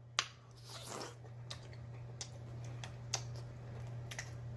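Close-miked crunching of a pickle spear being chewed: about six sharp, irregular crunches over a steady low hum.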